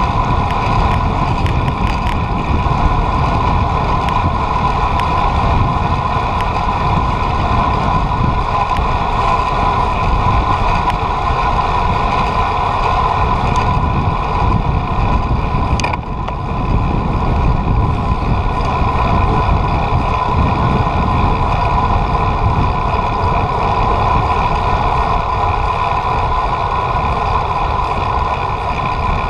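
Wind buffeting the microphone of a camera on a moving bicycle, with a steady mid-pitched hum under it. A short click and a brief drop in level come about sixteen seconds in.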